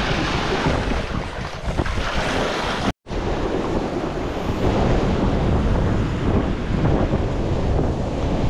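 Wind buffeting the microphone over the steady wash of sea waves on the shore. It cuts out for an instant about three seconds in, then carries on unchanged.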